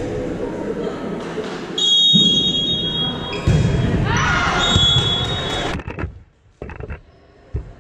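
Volleyball match in a reverberant gym: players' voices and calls with ball thumps, and two spells of a high steady shrill tone lasting a second or so each. The sound drops away sharply about six seconds in, leaving only faint noise.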